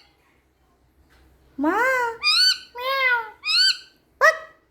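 Parrot calling: after a short quiet spell, five loud calls in quick succession, each rising then falling in pitch, the last one short and sharp.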